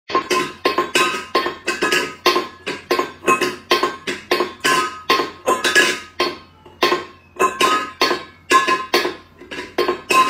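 Empty stainless steel food bowl clanking and ringing against a tiled floor as a cat licks and pushes it, about three quick metallic knocks a second.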